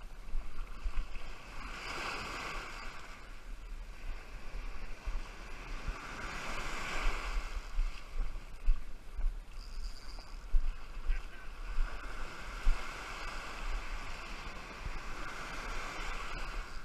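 Ocean surf breaking and washing up the beach, swelling every few seconds, with wind buffeting the microphone.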